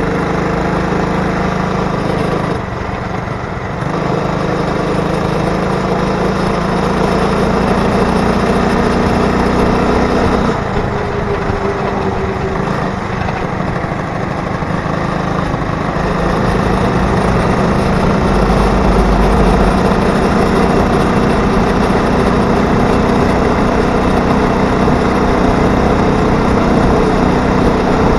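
80cc two-stroke engine of a motorized bicycle running steadily under way. Its note eases off briefly about three seconds in and again around eleven seconds in, then picks up and carries on.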